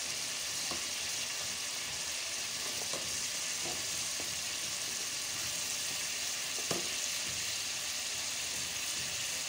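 Chicken, onions and tomatoes sizzling steadily in hot oil in an aluminium pressure-cooker pot, with a few faint clicks of the wooden spoon against the pot.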